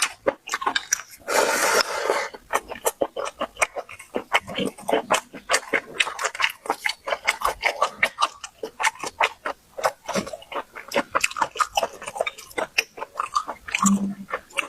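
Close-miked eating: rapid, irregular chewing and mouth clicks. There is a short rustling burst about a second and a half in and a brief hum near the end.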